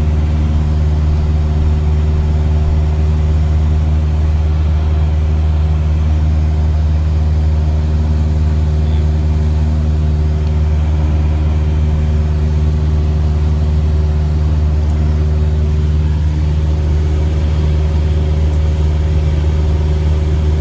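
Cessna light aircraft's piston engine and propeller droning steadily in cruise, heard from inside the cabin as a loud, even hum with a deep, unchanging pitch.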